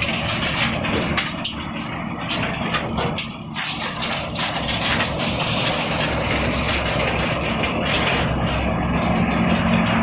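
Machinery running steadily with irregular clicking and clatter, and a low hum that grows stronger near the end.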